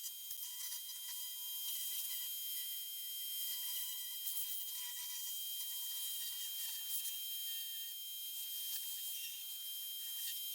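Simpson electric pressure washer running, a steady high-pitched whine with spray hiss.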